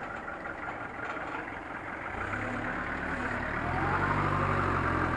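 Forklift engine running; about two seconds in a deeper steady engine hum comes in and grows louder as the truck works.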